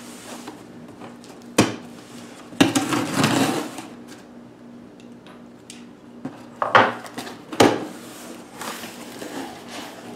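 Pocket knife slitting the packing tape on a cardboard shipping box, then the cardboard flaps rustling as they are pulled open. A sharp click, a longer scrape and a couple of sharp knocks along the way.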